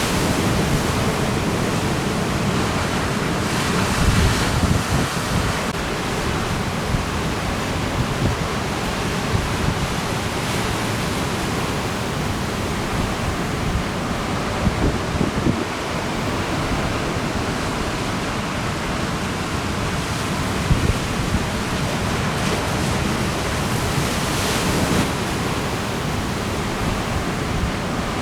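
Ocean surf breaking steadily, with strong trade wind buffeting the microphone in irregular low gusts.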